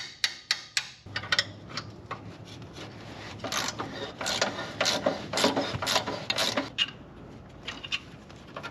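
Hand ratchet wrench working a seized exhaust downpipe nut on its stud: a few sharp metal clicks at first, then a run of rasping ratchet strokes, loudest in the middle.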